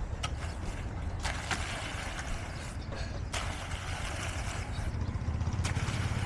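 Heavy construction machinery's diesel engine running steadily, growing slightly louder near the end, with a few sharp knocks scattered through.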